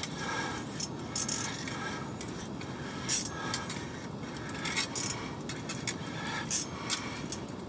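Ice-fishing rod and reel handling noise while a hooked fish is being played: short, irregular scrapes and light metallic clinks every second or so over a steady background hiss.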